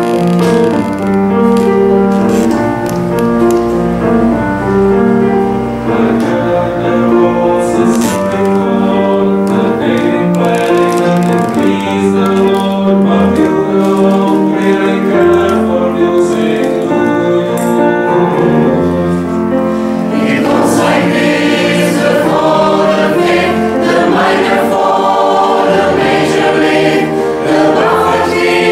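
Mixed choir of men and women singing together, accompanied on a grand piano.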